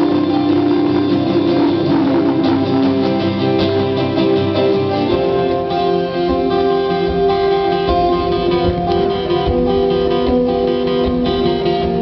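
Guitar music played live, with strummed chords and ringing notes and no singing: an instrumental passage of the song.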